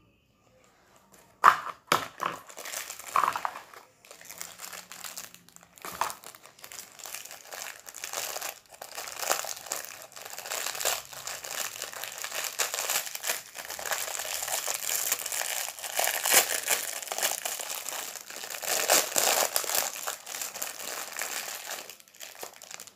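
Crinkly plastic packet being crumpled and pulled at while it is worked open, dense and close to the microphone. A few sharp knocks and rustles come in the first seconds, the loudest about a second and a half in.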